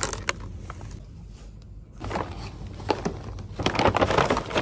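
Groceries being handled: scattered clicks and crinkles of plastic packaging, then from about two seconds in a paper shopping bag rustling and crinkling loudly as items are packed into it.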